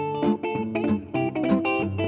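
Background music: a plucked guitar playing a melody, with notes coming about four times a second.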